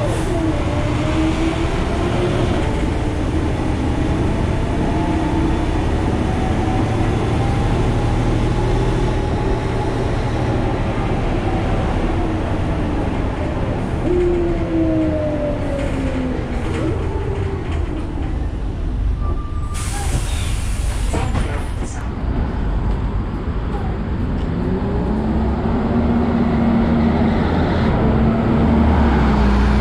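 Ikarus 435 articulated bus heard from inside: the diesel engine runs with its pitch rising and falling as the bus speeds up and changes gear. About two thirds of the way through there is a short burst of air hiss from the bus's pneumatics, and near the end the engine pitch climbs again and holds as the bus pulls away.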